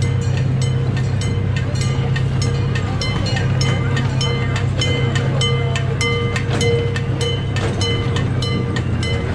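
Amusement-park ride-on train running along its track: a steady low rumble with regular clicks, about three a second, from the wheels on the rails.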